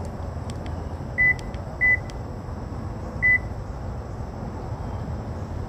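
Three short high-pitched beeps from a 2022 Toyota Avalon, about a second in, just before two seconds and a little past three seconds, as the key fob's lock button is pressed three times in the remote-start sequence.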